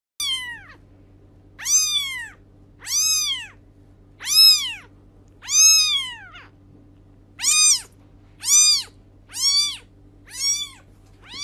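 A cat meowing over and over, about ten high meows a second or so apart, each rising and then falling in pitch, over a faint steady low hum.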